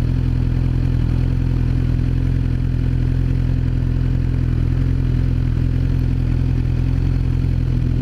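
Suzuki GSX-R 600's inline-four engine idling steadily at a standstill.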